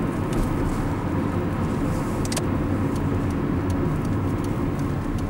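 Car interior driving noise: the engine and tyres make a steady low rumble heard from inside the cabin while the car is under way.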